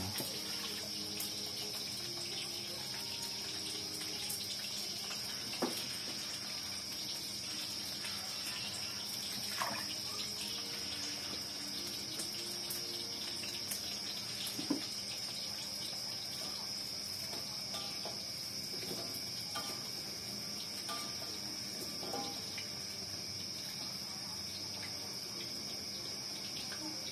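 Cassava pieces frying in hot oil in a wok, a steady sizzling hiss, with a few light knocks of utensils. A constant high insect chirring, likely crickets, runs underneath.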